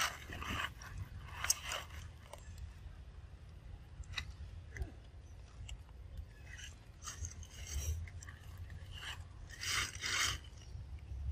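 Short, scattered rustles and scratches of macaques' hands and feet moving in fur and dry fallen leaves, the strongest about a second and a half in and near the end, over a low steady rumble.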